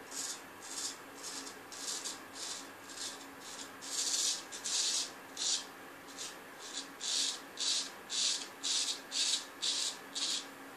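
Early-1900s A.J. Jordan straight razor scraping through lathered beard stubble in short repeated strokes, about two a second, with two longer strokes about four seconds in.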